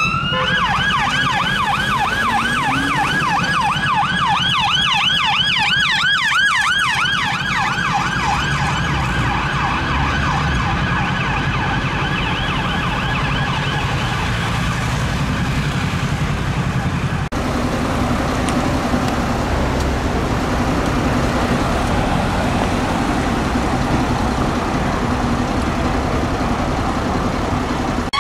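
Police car siren on a fast, repeating yelp, opening with a rising wail and fading out by about fourteen seconds in. After about seventeen seconds the siren is gone and steady city traffic noise with engines running takes over.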